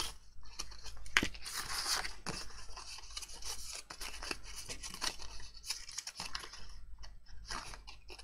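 Embossed cardstock being folded along its score lines and handled: crackling, rubbing paper noise with scattered sharp clicks, the loudest a little over a second in.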